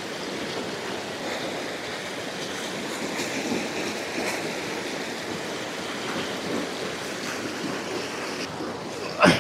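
Mountain stream rushing and splashing over granite slabs in a steady, full rush of water. A single sharp bump sounds just before the end.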